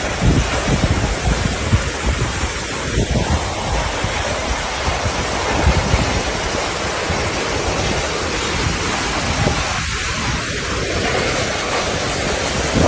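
Waterfall: falling water making a steady, loud rushing noise, with uneven low rumbling underneath.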